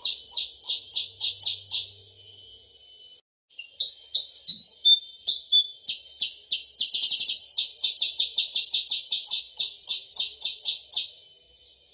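Bird lure recording of kutilang sutra (percang) calls: loud, short, high chirps repeated rapidly, about three to four a second, with a break of about two seconds near the start.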